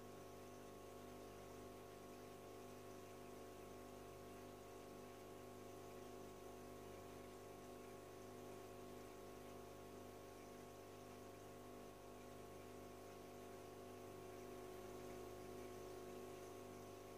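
Near silence with a faint, steady electrical hum from the aquarium's internal filter pump running.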